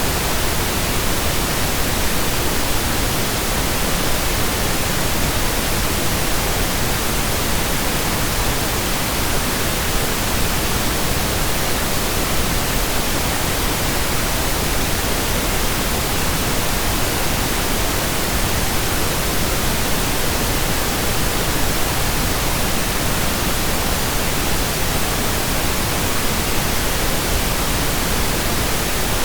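Steady synthetic pink noise: an even, unchanging hiss spread across the whole range of pitch, played continuously.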